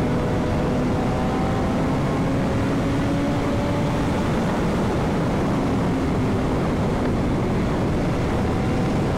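Sport motorcycle cruising on the highway: a steady engine drone whose pitch shifts slowly, under a loud, even rush of wind noise.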